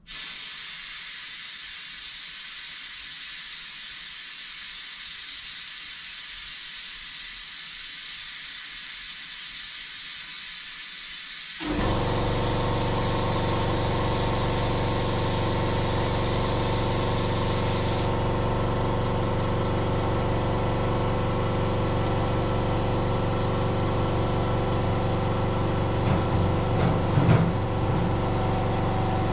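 Compressed air hissing steadily through a pneumatic venturi vacuum brake bleeder as it draws brake fluid through the lines. It switches on sharply at the start. About twelve seconds in, an air compressor's motor starts and runs with a steady hum under the hiss, with a few light knocks near the end.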